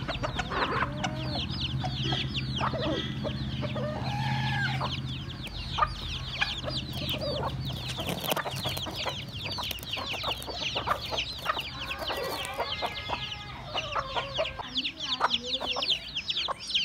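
Young chicks peeping without pause, many short, high, falling peeps overlapping, with occasional lower clucks among them. A low steady hum sits underneath through the first half.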